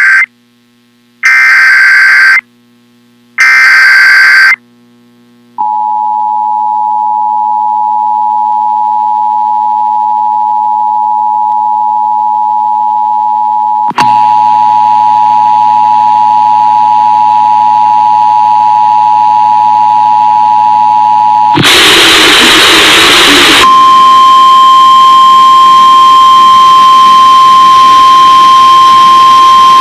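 Emergency Alert System test tones. First come the screeching digital data bursts of the alert header, three in a row about a second each. Then the two-tone EAS attention signal holds steady, with a hiss joining it about 14 s in. About 22 s in there is a two-second burst of static, and after it a single steady tone.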